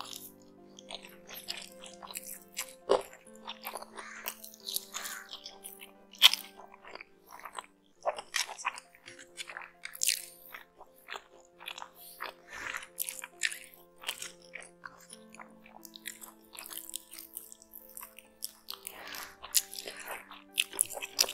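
Close-up chewing and crunching of hand-eaten green mutton biryani, with many quick wet mouth clicks and smacks, over soft background music with held notes.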